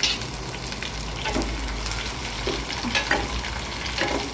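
Chopped onions, chillies and mustard and cumin seeds sizzling in hot oil in a stainless steel kadai: the tempering for sambar. A steel spoon stirs through them, scraping the pan a few times.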